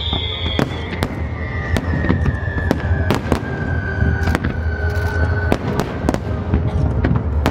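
Fireworks display: aerial shells bursting in quick succession, several sharp bangs a second over a steady low rumble.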